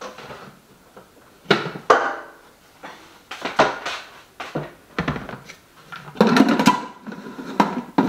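Kitchen things being handled and set down on a hard surface: a string of knocks and clinks, some ringing briefly, busiest about six seconds in.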